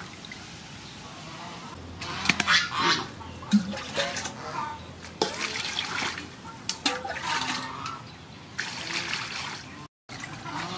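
Water splashing and sloshing in an aluminium basin as hands wash and rub whole fish, in irregular short bursts.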